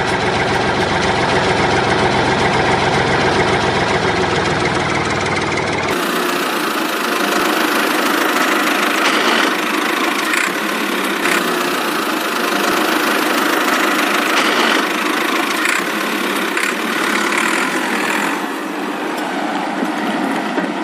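Steady engine-like running sound, like a tractor idling. About six seconds in it changes abruptly, losing its low rumble and turning thinner and brighter, with a few short clicks after.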